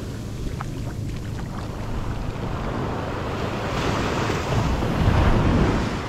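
Ocean surf washing up the beach, with wind buffeting the microphone in a steady low rumble. A wave's rush swells up over the second half and peaks near the end.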